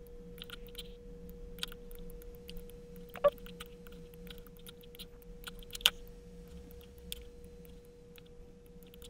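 Scattered computer mouse clicks and light key taps over a faint steady electrical hum, with two sharper clicks about three and six seconds in.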